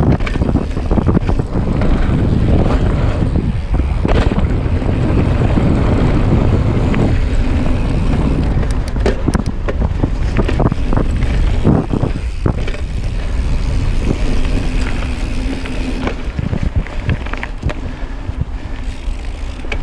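Mountain bike riding fast down a forest dirt trail, heard from an action camera on the bike: wind buffeting the microphone over the rumble of knobby tyres on dirt and leaves. The bike rattles and clatters over bumps, most busily around the middle.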